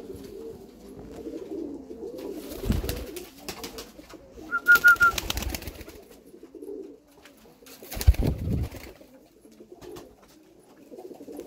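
Domestic pigeons cooing, a low, steady cooing murmur throughout. Dull thumps come about three and eight seconds in, and a short, loud burst of clattering about five seconds in.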